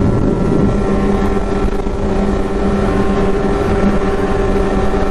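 Snowmobile engine and track running at a steady cruising speed, with an even hum and no change in pitch, heard from the machine's own mounted camera.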